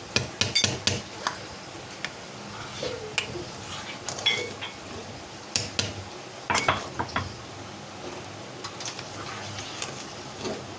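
A metal spoon stirring thick tomato paste in a cooking pot, clinking and scraping against the pot in irregular knocks. The knocks come thickest in the first second and again around six to seven seconds in.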